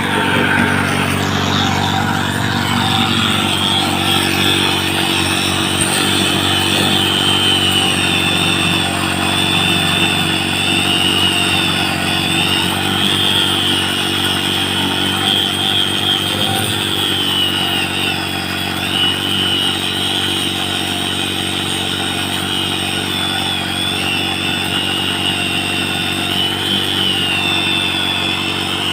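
A motor running steadily, with a high whine that wavers up and down in pitch.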